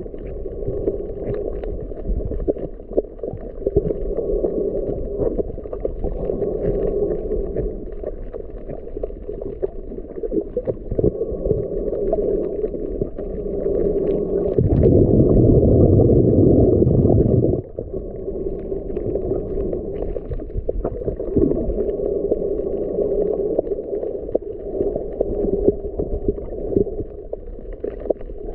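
Muffled underwater water noise picked up by a camera under the surface: a steady low rumble and swish with faint ticks. A louder rush lasts about three seconds midway.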